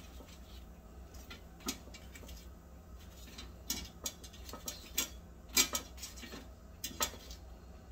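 Metal kitchen tongs clicking and tapping against a wire rack and plate while fried tortilla chips are moved and arranged: a handful of sharp, irregular clicks over a low steady hum.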